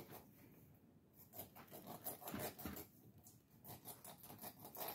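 Small kitchen knife sawing through the fins of a whole raw catfish: faint, crisp scratching clicks in two short runs.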